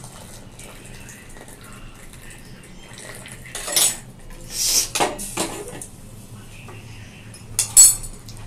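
Steel saucepan and plastic tea strainer clattering while freshly made tea is strained into a cup: a quiet pour at first, then a run of clanks about halfway through and one loud clank near the end.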